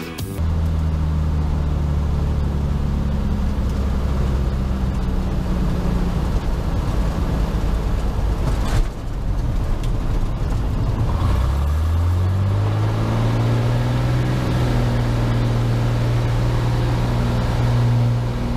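Cessna 182S's six-cylinder Lycoming engine and propeller heard from inside the cabin, running steadily, then rising in pitch about eleven seconds in as power comes up for the takeoff roll, and holding at the higher pitch.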